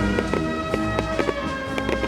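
Music with held melody notes, over frequent scattered pops and crackles from fireworks.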